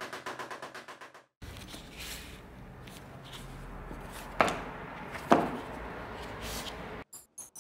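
A steel hammer taps rapidly on leather laid over an anvil, about ten light taps a second, fading out within the first second or so. After a short break come handling sounds with two sharp knocks about a second apart. A rhythmic music beat starts near the end.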